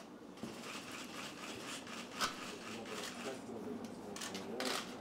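A few sharp clicks of camera shutters over faint murmuring voices in a quiet room.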